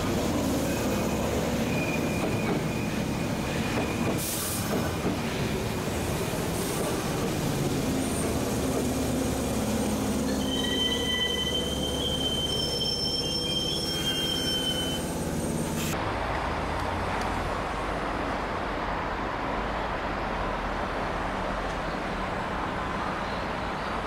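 Sanyo Electric Railway commuter train running past along the station track, wheels rumbling on the rails, with high wheel squeals about halfway through. About two-thirds of the way in the sound changes abruptly to a duller, steady rushing noise.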